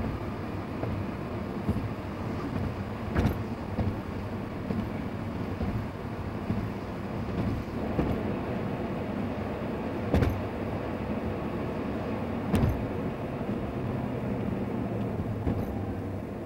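Steady road and engine noise of a moving car, heard from inside the cabin as it drives on wet pavement. A few sharp thumps come through, clearest about three, ten and twelve and a half seconds in, as the tyres go over bumps in the road.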